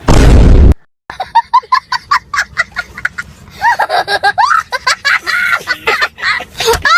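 A loud, blaring farting noise lasting under a second from the prank, then several seconds of people laughing and giggling in quick, high-pitched bursts.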